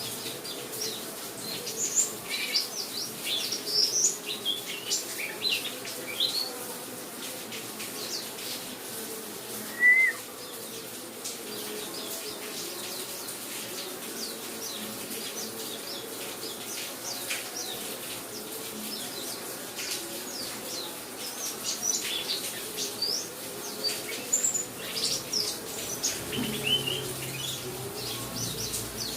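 Buxtoni white-eye (pleci) twittering in quick, high, falling chirps in two flurries, with one loud chirp between them, over a steady hiss of rain sound.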